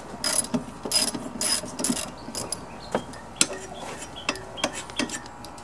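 Ratchet wrench clicking irregularly as it turns the blade bolt on a push mower's blade, loosening it to take the blade off.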